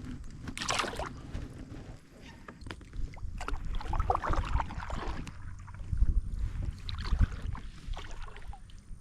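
Water splashing and sloshing with scattered knocks around a kayak, over a low rumble; the splashes come in irregular bursts, heaviest about a second in and again from around four to seven seconds.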